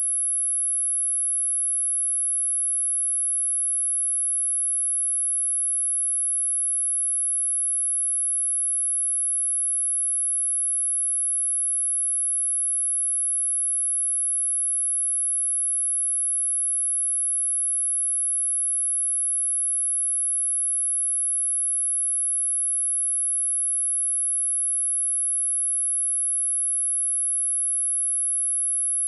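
A single pure, high-pitched test tone at 10923 Hz, held steady without any change in pitch or loudness.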